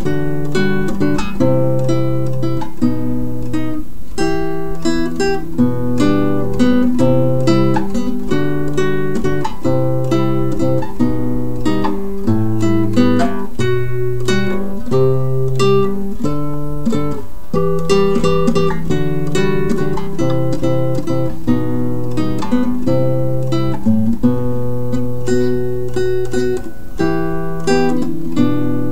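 Background music: an acoustic guitar playing a flowing run of plucked notes over held bass notes.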